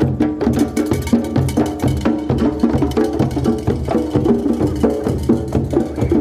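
Drum ensemble, a large double-headed drum and several hand drums, playing together in a quick, steady rhythm of low thuds and sharp higher strikes.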